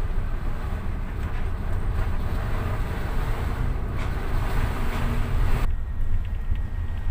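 Storm wind buffeting the microphone over rough, breaking seas, with a steady low rumble underneath. A little under six seconds in, the wind and wave hiss cuts off suddenly and only a muffled low rumble remains.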